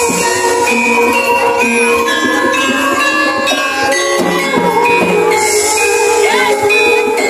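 Gamelan music accompanying an ebeg (kuda lumping) trance dance: struck pitched notes step up and down in a melody, with high jingling about five seconds in.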